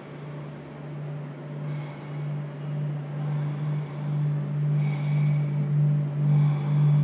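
Low steady drone from an audiovisual installation's soundtrack, pulsing in slow regular swells and growing louder, with faint high tones above it.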